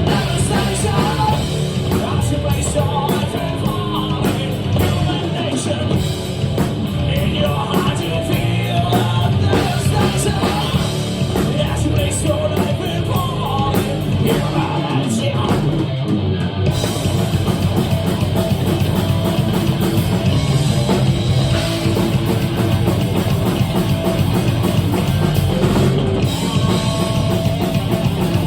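A thrash-metal band playing live and loud: distorted electric guitars, bass and a fast drum kit, with singing over it, recorded on a phone among the crowd.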